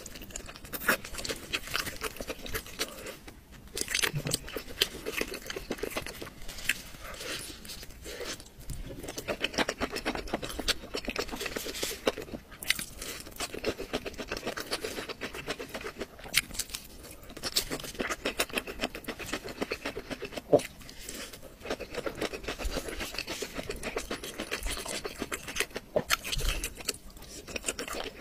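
Close-up mukbang eating sounds: chewing and biting into chicken and skewered vegetables, a steady run of small clicks and smacks.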